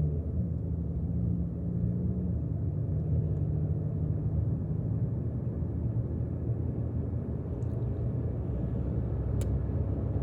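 Steady low rumble of a car on the move, with a faint click about nine seconds in.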